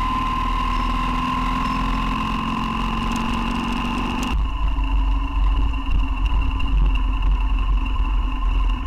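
BMW R1200GS boxer-twin engine running as the motorcycle rides along, with a steady high whine over it. About four seconds in the sound changes abruptly to a heavier, unsteady low rumble of wind buffeting the microphone.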